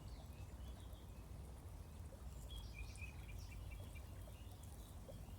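Faint songbird chirps and short twittering phrases in a few clusters over a steady low background rumble of outdoor ambience.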